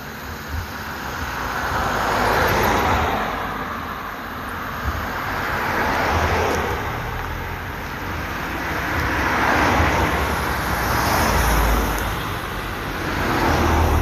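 Cars passing one after another on an asphalt road, their tyre and engine noise swelling up and fading away several times, with the loudest pass near the end as a car goes by close.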